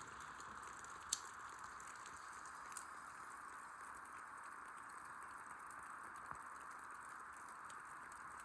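Light rain falling with a steady, faint hiss, broken by a sharp click about a second in and a softer one near three seconds.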